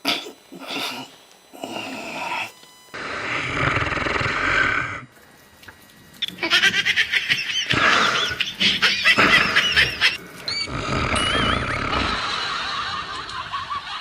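Loud, exaggerated human snoring in several bouts of different lengths, broken by short pauses.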